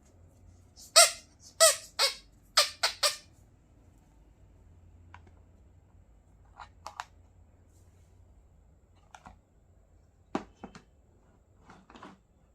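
Toy kitchen set pieces and packaging being handled: five short, loud squeaks in quick succession, then a few light clicks and taps.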